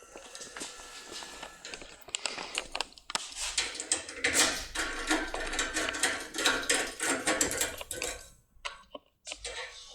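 Clicks, small rattles and rustling of a small metal locksmith tool being handled. This is a dense run of sharp clicks that tails off about eight seconds in.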